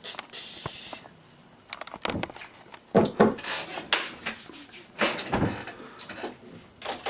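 Hard objects being handled and knocked about: a string of separate knocks, clatters and scrapes, the loudest about three, four and five seconds in.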